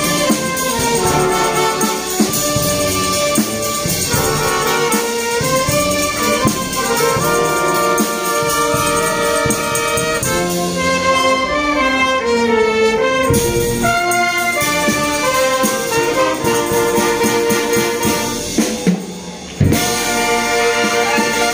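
Symphonic wind band, with clarinets, saxophones, brass and percussion, playing a melodic arrangement live. Near the end the band drops away for a moment, then comes back in with a loud full-band accent.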